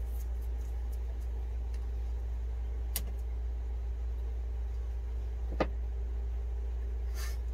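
Two small clicks of hands handling electrical wiring, about three seconds and five and a half seconds in, over a steady low hum, with a short hiss near the end.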